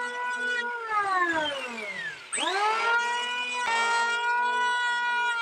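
Electric hand planer's motor whining at speed without cutting, then released and winding down in pitch, and switched on again about two seconds in, spinning back up to a steady high whine.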